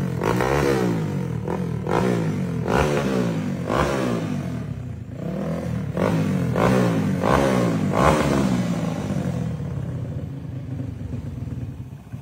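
Race-modified Yamaha Crypton 115 four-stroke motorcycle engine revved on the stand in repeated quick throttle blips, its pitch climbing and falling about once a second. It grows quieter over the last few seconds.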